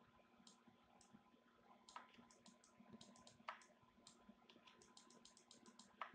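Near silence with faint, quick computer mouse clicks, about two dozen, coming in fast runs in the second half, over a faint steady electrical hum.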